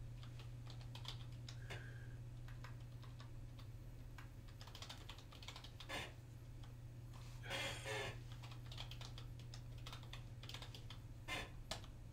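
Computer keyboard typing: soft, irregular keystrokes over a steady low hum, with a brief louder burst of noise a little past the middle.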